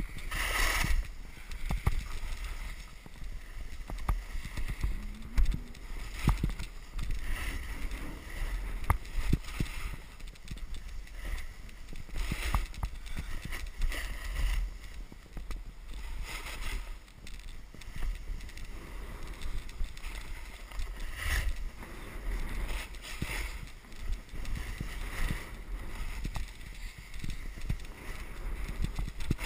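Wind buffeting a helmet-mounted action camera's microphone with a steady low rumble, over the repeated hissing scrape of edges carving through packed, groomed snow at each turn, every second or two, with occasional sharp clicks.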